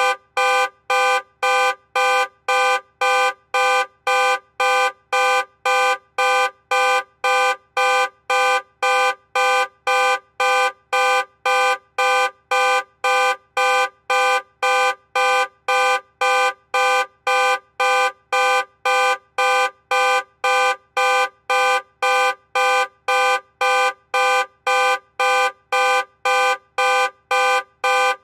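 Car alarm honking the car's horn over and over, about two short honks a second. Every honk has the same pitch and the pattern never changes.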